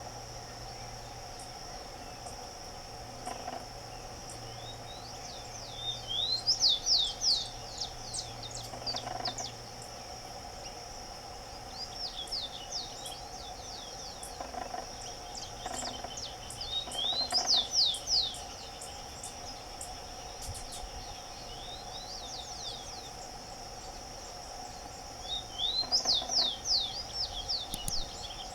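Rufous-collared sparrow singing its short song of quick down-slurred whistles, repeated about every five seconds (five songs).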